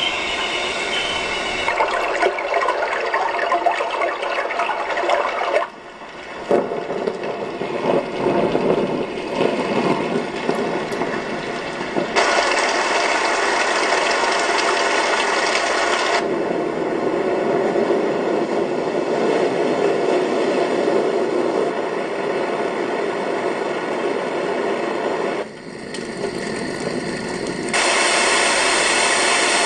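Hometics travel clock's built-in soothing sounds playing loudly through its small speaker: a steady rushing noise, like water or white noise, that changes to a different sound track every few seconds, with two brief drops in level as it switches.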